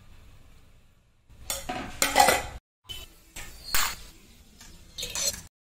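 Stainless steel kitchen vessels clattering and clinking as they are handled on a gas stovetop, in several bursts that stop abruptly near the end.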